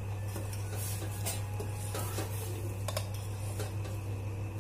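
A metal spoon stirring rasam in a steel saucepan, with a few light clinks and scrapes against the pan over a steady low hum.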